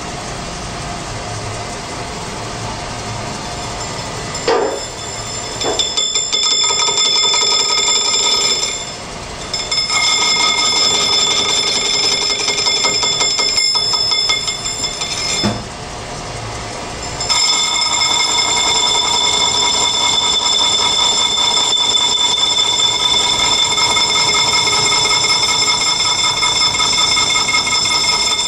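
Metal lathe turning a bearing cup, with its cutting tool ringing against the spinning metal in a steady, high-pitched, many-toned squeal. The ringing sets in about five seconds in, drops out briefly twice, then holds to the end over the machine's running noise.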